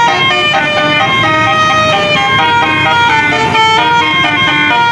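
A bus's basuri telolet horn playing a tune, loud, stepping from one held note to the next.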